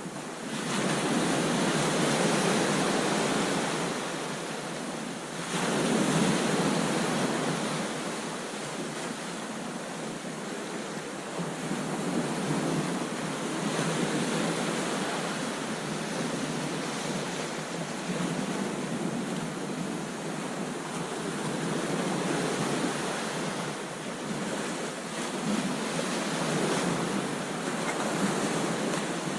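Ocean waves breaking and washing onto a beach: a continuous rush of surf that swells as waves break about a second in and again at about five and a half seconds, then settles into a more even wash with gentler surges.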